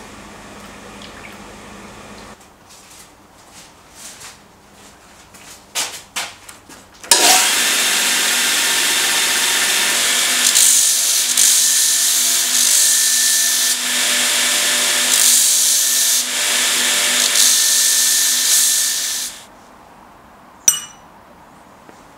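Belt grinder running with a forged iron piece pressed against the belt, throwing sparks: a loud, steady grinding noise for about twelve seconds that stops sharply near the end. Before it, a faint hiss of the hot piece cooling in a water bucket, with a few clicks and clatters; one sharp click comes after the grinder stops.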